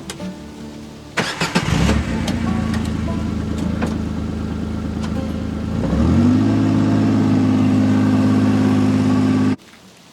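An engine starts about a second in and idles. About six seconds in it steps up to a louder, steady higher speed, then cuts off abruptly near the end.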